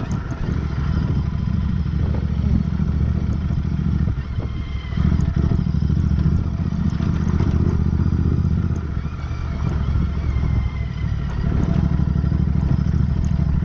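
Royal Enfield Interceptor 650's 648 cc parallel-twin engine running under way at low speed. Its note dips briefly twice: about four and a half seconds in, and again around nine to eleven seconds in.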